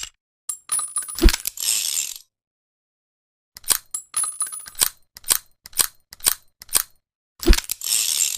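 .357 revolver being handled and reloaded between shots: a series of sharp metallic clicks and clinks of the cylinder and cartridges. Two louder metallic knocks come about a second in and near the end, with a run of even clicks about two a second in the middle.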